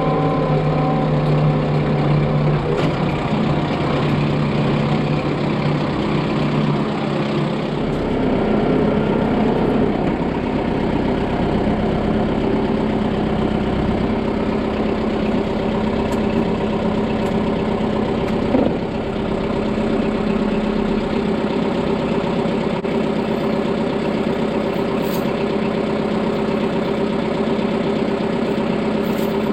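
Farm tractor engine running steadily at low speed, its note shifting in the first couple of seconds and again about eight seconds in. A single short knock about two-thirds of the way through.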